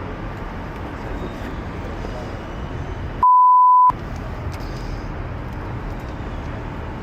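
A single steady-pitched censor bleep, about two-thirds of a second long, comes about three seconds in and blanks out all other sound while it plays. Around it runs a steady rushing background noise.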